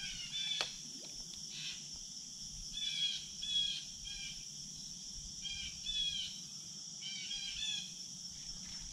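Creekside ambience: a steady, high insect drone with a bird's short chirped notes repeating in small groups about every second. A single sharp click comes just after the start.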